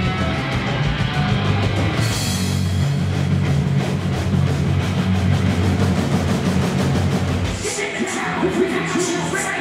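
Live rock band playing loud, with electric guitars, bass and drums. The full band sound drops away about two seconds before the end, leaving a shouted voice and cymbals.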